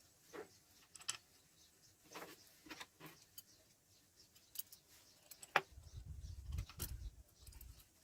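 Light, scattered clinks and taps of metal parts and hand tools being handled during gearbox work, with a low rumble for the last two seconds or so.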